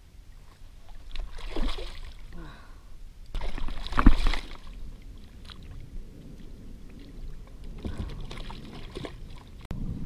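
Water splashing and sloshing in three bursts, near two, four and nine seconds in, the loudest with a sharp knock about four seconds in: a jack crevalle thrashing at the surface beside a kayak as it is landed by hand.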